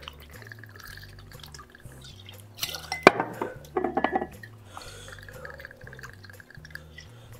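Liquid pouring and dripping, with a sharp clink about three seconds in.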